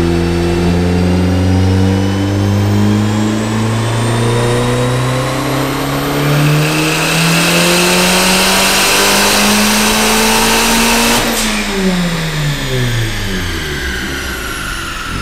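Turbocharged VW 1.8T 20-valve inline-four at full throttle on a chassis dyno, revs climbing steadily for about eleven seconds while the turbo spools, with a rising whistle and a hiss from about six seconds in. A sharp burst comes as the throttle closes, then the revs fall as the engine and rollers wind down.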